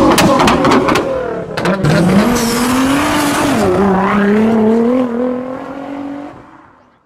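Sports-car engine sound effect: a quick string of exhaust pops and cracks in the first two seconds, then the engine note revs up, dips and holds, fading out near the end.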